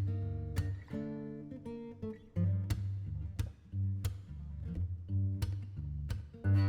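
Instrumental background music: an acoustic guitar plucking and strumming chords with a steady bass line.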